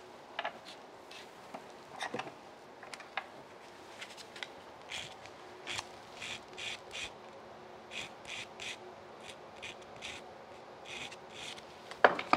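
Short scraping strokes of a hand tool cutting a small bevel on the edge of a wooden piece, coming in a run of about two to three strokes a second from about five seconds in. A sharp knock near the end.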